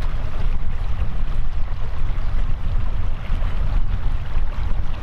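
Wind buffeting the microphone over the steady rush of a mountain stream, a loud, unbroken rumbling noise.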